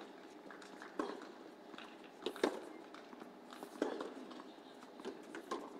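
Tennis rally: a tennis ball struck back and forth by racquets, four sharp hits about a second and a half apart.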